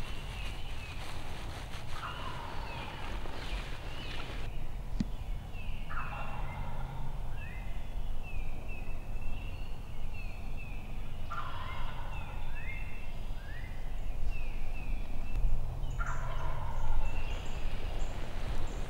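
A wild turkey gobbler gobbling four times, about every four to five seconds, each gobble a rolling call that falls in pitch.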